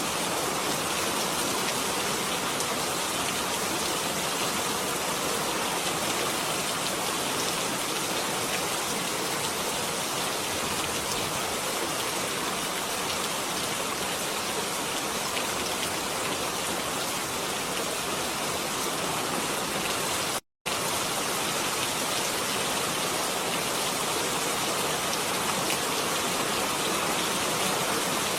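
Steady rain falling, an even, dense hiss of drops. It breaks off into a split-second gap about two-thirds of the way through.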